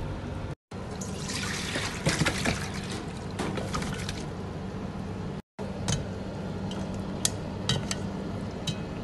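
Milk pouring over raw chicken drumettes in a metal bowl. A few sharp clinks and splashes follow as the pieces are moved around in the bowl.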